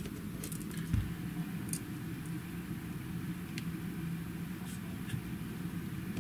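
Steady low background hum with a few faint small ticks and clicks as a pin screwdriver works tiny screws into a hair straightener's plastic housing, and a soft thump about a second in.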